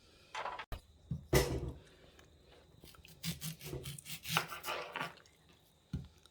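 Kitchen handling noises: a sharp knock about a second and a half in, then a run of small clicks and scrapes.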